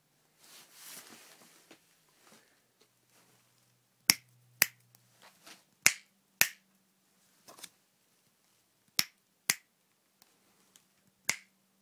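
Finger snaps, mostly in pairs about half a second apart, starting about four seconds in. Each one is sharp and dry and dies at once with no ringing after it. They test the echo in a booth lined with folded cardboard wedges, where the echo is like eliminated.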